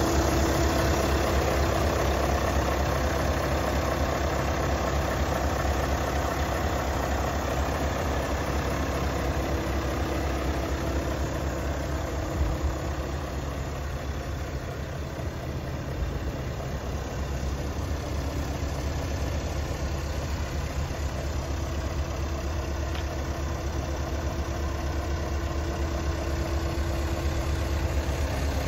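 Scania S580's 16-litre V8 diesel idling steadily, a low even hum that drops a little in level midway before coming back up.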